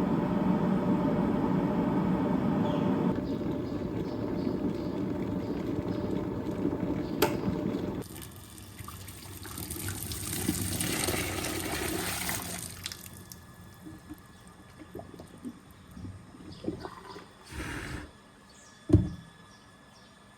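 Water running from a tap into an electric kettle for about eight seconds, then a thinner hissing stream. Small clatters follow, with one sharp knock near the end.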